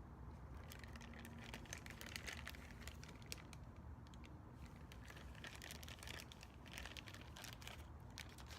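Faint crinkling and scattered light clicks of hands handling brake caliper parts on a bench, busiest about two seconds in and again between six and seven seconds, over a low room hum.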